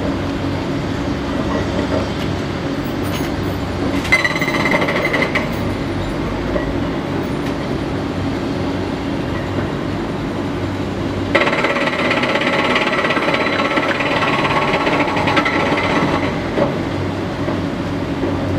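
Hydraulic breaker on a Caterpillar 330D L excavator hammering rapidly in two bursts, a short one about four seconds in and a longer one of about five seconds later on, over the steady running of heavy diesel engines.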